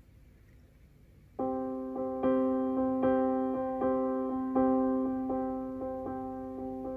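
Background music: a soft electric-piano melody that starts about a second and a half in, after a faint hum, with notes struck at a slow steady pace and left ringing.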